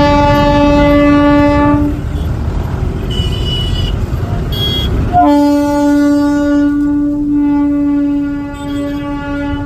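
Train horn sounding two long blasts: the first ends about two seconds in, and the second starts about five seconds in and is held through to the end. The low rumble of the train runs under the first blast, and two short higher tones come between the blasts.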